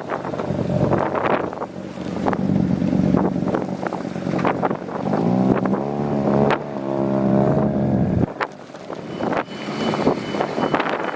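Wind buffeting the microphone over passing car engines. About five seconds in, one car's engine revs up and down for about three seconds, then stops abruptly. Near the end a vehicle's reversing beeper starts.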